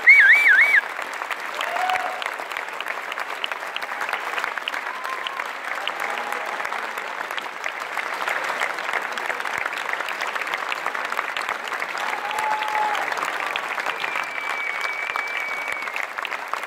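Large audience giving a standing ovation: dense, sustained clapping. A loud warbling whistle cuts through in the first second, a few short calls rise out of the clapping, and a long held whistle comes near the end.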